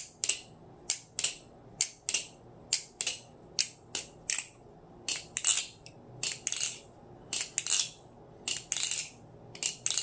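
Marcolo Comet aluminum-handled balisong trainer being flipped, its handles and blade clacking in sharp metallic clicks a few times a second, some in quick pairs: a really nutty aluminum balisong sound.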